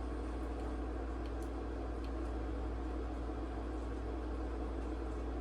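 A steady low electrical or fan-like hum with an even hiss, with a few faint clicks in the first half.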